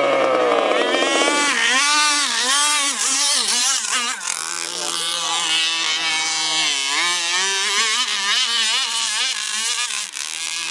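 Boat engine running, its speed wavering rapidly up and down.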